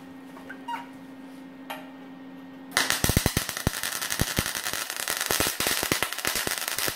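Arc welder's arc crackling and popping on steel for about four seconds after a steady low hum, then cutting off suddenly. The arc pops instead of giving an even frying-bacon sizzle, a sign that the welding current is set too cold.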